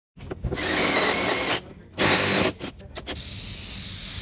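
Power drill with a step drill bit boring through a carbon fibre bonnet: the motor whines in two main runs with short stop-start bursts between trigger pulls, followed by a quieter steady noise near the end.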